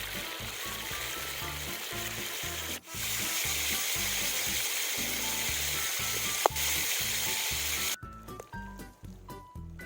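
Pork belly frying in hot oil: a steady sizzle that breaks off briefly about three seconds in, has one sharp click or pop past the middle, and cuts off suddenly near the end.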